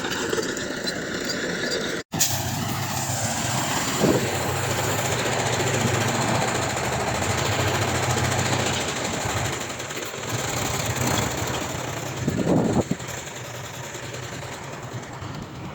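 Heavy diesel earthmoving machinery running under load, a steady low engine hum with a couple of brief louder knocks, broken by a short dropout about two seconds in.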